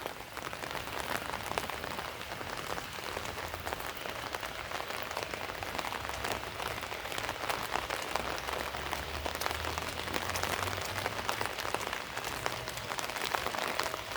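Steady rain falling, with many separate drops hitting close by, over a low rumble that swells for a few seconds in the middle.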